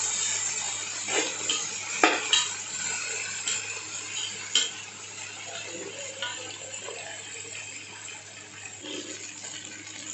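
Onions and chopped tomatoes sizzling in oil in a non-stick pot while a metal slotted spoon stirs them, scraping and clinking against the pan several times in the first five seconds. The sizzle fades gradually.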